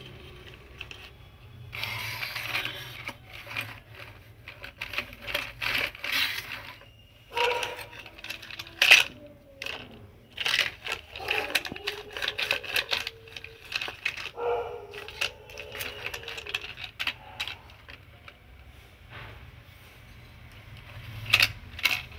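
Hard plastic toy vehicles clattering on a concrete floor as they are pushed about and knocked against each other: a run of irregular sharp clicks and knocks, loudest about nine seconds in and again near the end.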